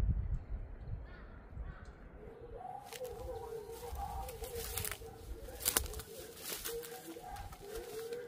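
Birds giving repeated low, wavering calls, with a few sharp crackles from dry brush and grass underfoot.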